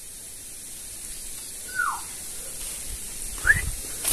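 A person whistling to call someone: two short whistled notes, one falling about two seconds in and a higher, rising one near the end.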